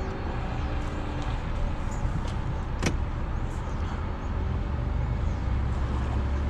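Pickup truck engine running, heard from inside the cab as a steady low rumble while backing a boat trailer down a launch ramp. A single sharp click about three seconds in.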